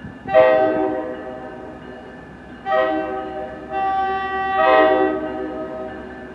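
Approaching NJ Transit train's multi-note air horn sounding four blasts. The first blast is the loudest and longest. It is followed by a shorter one, a brief one, and a final one held longer.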